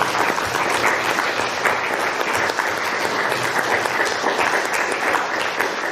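Audience applauding, a steady round of hand-clapping.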